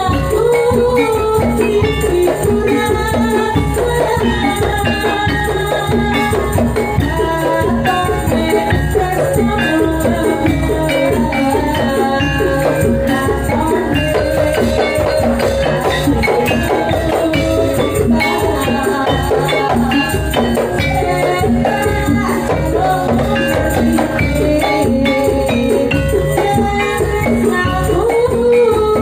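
Loud, continuous music from a gajah-gajahan performance, with jingling, shaker-like percussion over a steady beat and melodic lines.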